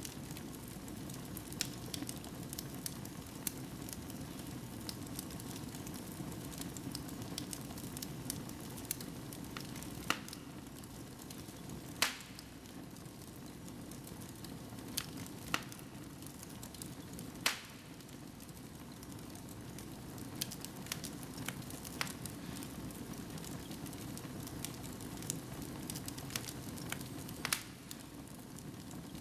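Wood fire burning in a fireplace: a steady low rush of flames with irregular crackles and pops, a few sharper snaps standing out.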